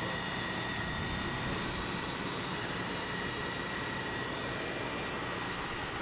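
Fire engine running its water pump: a steady engine drone with a constant high whine.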